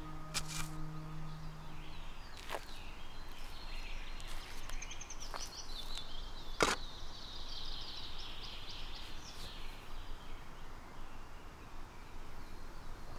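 A steel spade driven into soil a few times, as separate sharp hits, the loudest about two-thirds of the way through. High chirping runs through the middle over a steady outdoor background.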